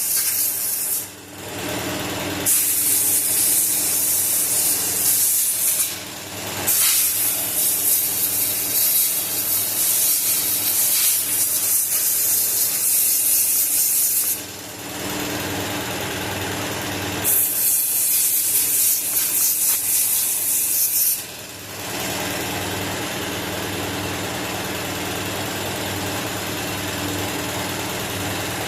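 Compressed air blasting from an air-hose nozzle in four long hissing bursts, blowing dust out of a car cabin air filter, with an air compressor running steadily underneath. After about 21 s the blasts stop and only the compressor keeps running.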